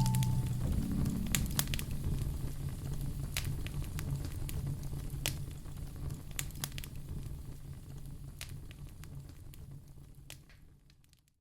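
Burning logs in a fireplace crackling, with irregular sharp pops over a low rumble, fading out to silence near the end.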